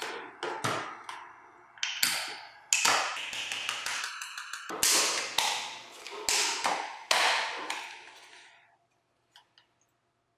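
Clicks and knocks of an airsoft Steyr Scout rifle's receiver, stock and magazine being handled and fitted together. There are about ten sharp taps over the first seven seconds, some ringing briefly, and they die away by about nine seconds in.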